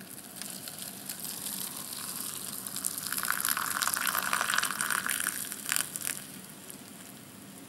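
Boiling water poured in a thin stream into an instant noodle cup, first splashing onto the dry noodles, then running into the rising water as the cup fills. It gets louder about three seconds in and stops about six seconds in.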